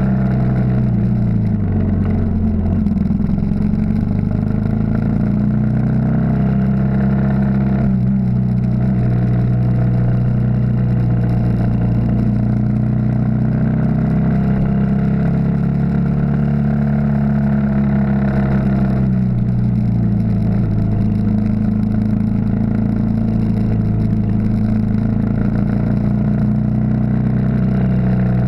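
Yamaha XT 600 single-cylinder four-stroke engine running under way, heard from the bike itself. The engine note drops and climbs again a few times.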